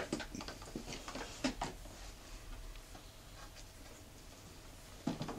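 Light clicks and taps of a doll and plastic pieces being handled in a plastic toy food truck, scattered irregularly, with a sharper knock at the start and another about a second and a half in.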